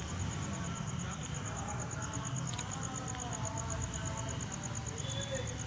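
A cricket chirping in a fast, even, high-pitched pulse, over a low rumble and faint distant voices.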